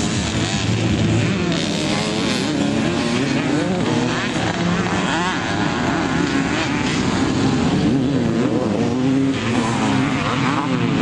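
Vintage pre-1990 motocross bikes racing on the track, engines revving up and down as they go through the gears.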